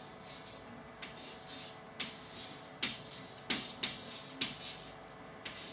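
Chalk writing on a blackboard: a run of scratchy strokes, with several sharp taps as the chalk hits the board in the second half.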